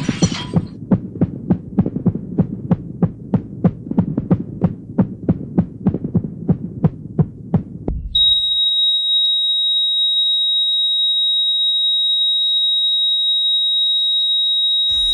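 Heartbeat sound effect: fast, even thumps over a low rumble that stop suddenly about eight seconds in. A single steady high beep follows, like a heart monitor's flatline, signalling that the heart has stopped.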